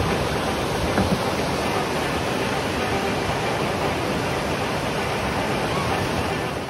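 Whitewater rapids rushing over boulders: a steady, loud wash of moving water.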